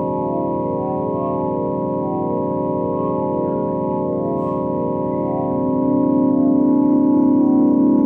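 Synthesized space-ambience drone: many sustained organ-like tones held together as one steady chord, with a slow pulsing shimmer. About two-thirds of the way through a low tone swells and the whole grows louder.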